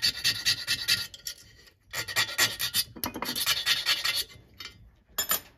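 A fine hand file rasping the end of an SBT two-stroke piston ring in quick back-and-forth strokes. The strokes come in three runs with short pauses between them, then one brief scrape near the end. The ring's end gap is being opened up because it was too tight, aiming for 12 thousandths.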